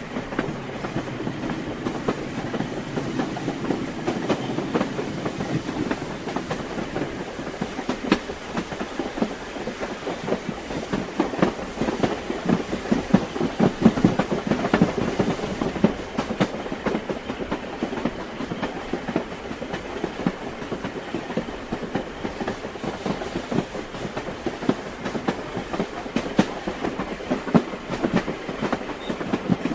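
Train wheels clattering over the rail joints with a steady running rumble, a continuous clickety-clack that swells a little midway.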